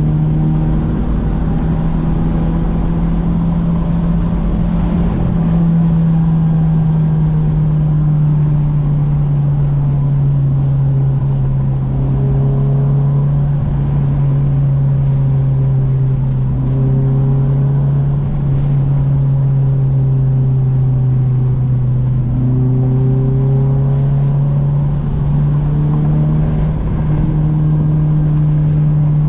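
Honda Accord wagon's engine running at a steady cruise, a steady drone that drifts slightly up and down in pitch, over tyre and road noise.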